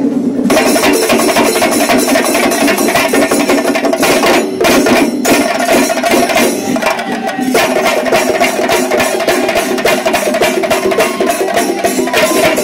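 Loud music with fast, dense drumming over steady pitched tones; the drumming drops away briefly twice in the middle.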